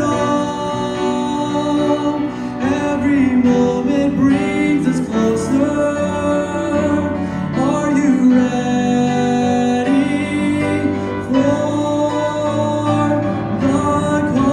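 A man sings a gospel song into a handheld microphone over instrumental accompaniment, holding long notes with a wavering pitch.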